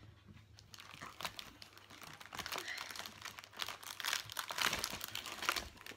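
Crinkling of plastic and foil snack wrappers as a child rummages through a box of packaged sweets and lifts one out, faint at first and louder in the second half.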